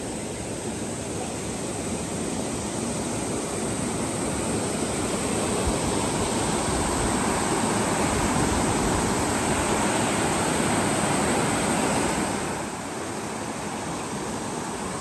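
Sea surf washing on a beach, a steady rush that swells over several seconds and drops back about four-fifths of the way through.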